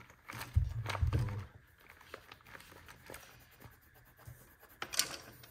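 Felt-tip markers being picked out and handled: soft knocks and light clicks of plastic marker barrels, with dull bumps about a second in and a sharp click near the end.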